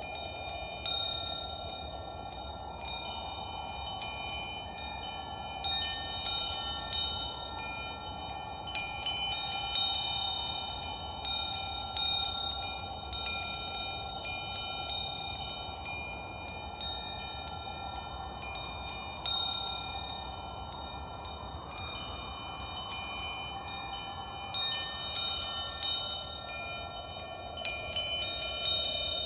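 Metal wind chimes ringing, struck again every few seconds at irregular moments, with a cluster of high, lingering tones over a steady hiss.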